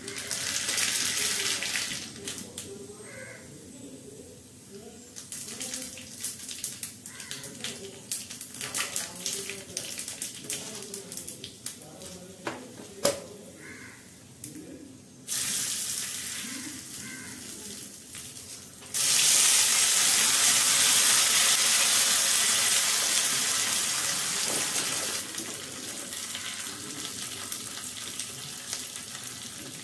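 Tempering in hot groundnut oil in a small tadka pan: seeds crackle and pop with bursts of sizzling. About two-thirds of the way through, a loud, steady sizzle starts suddenly as red chillies and curry leaves go into the oil, easing a little near the end.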